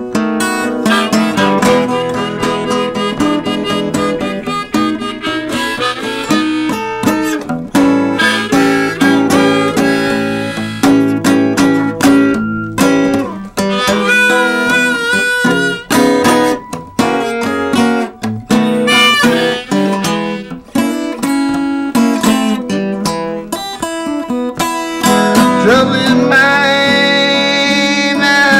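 Acoustic guitar strummed and picked with a harmonica on a neck rack playing over it, an instrumental blues break. The harmonica bends notes about halfway through and again near the end.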